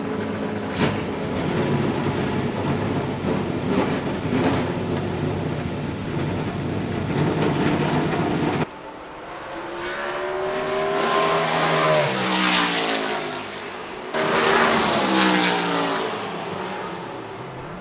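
Race truck V8 engines running, a dense rumble that cuts off abruptly about nine seconds in. After the cut, engines rev and pass by, their pitch rising and falling in two sweeps.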